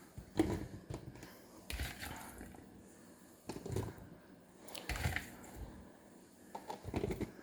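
Handling noise from portioning strawberries into plastic food containers: scattered soft taps and clicks, about one a second, with quiet rustling between.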